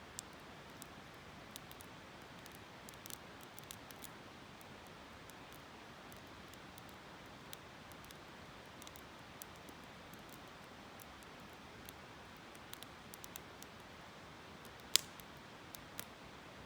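Wood campfire crackling: scattered sharp pops and snaps, with one louder pop near the end, over the steady rush of a flowing river.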